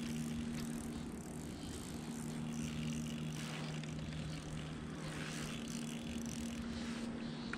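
Pedal-driven kayak moving through calm water: water washing and fizzing along the hull over a steady low hum.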